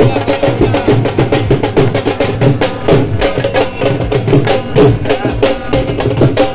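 Live drums beating a fast, dense rhythm of strikes, with sharp clicking hits mixed in.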